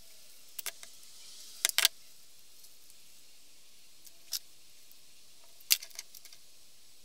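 Needle and thread being worked through 3 mm leather in hand stitching: scattered sharp little clicks and ticks as the thread is drawn through and snugged, loudest in a quick cluster about two seconds in and again around six seconds.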